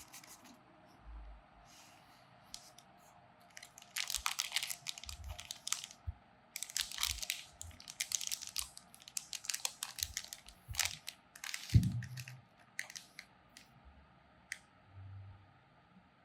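Product packaging being opened by hand: bursts of crinkling and tearing from about four seconds in, then a single thump near twelve seconds and a few light clicks.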